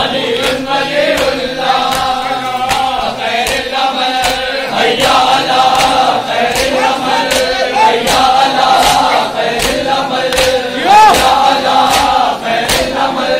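Large crowd of men chanting a nauha together, with a steady rhythm of sharp hand slaps on bare chests (matam), roughly two a second.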